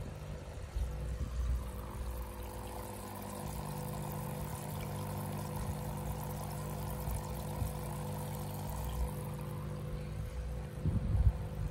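Aquarium filter running: its return water pours and splashes steadily into the tank over a constant pump hum. A few dull knocks come near the end.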